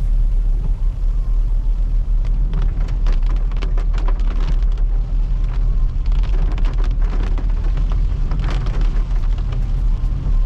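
Inside a car driving on a wet road in heavy rain: a steady low engine and road rumble, with raindrops ticking irregularly on the windscreen and body.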